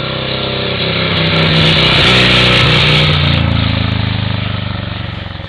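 Speedway motorcycle's single-cylinder engine running as the bike rides past on the track: it grows louder to a peak about two seconds in, then fades as it moves away, its pitch dropping.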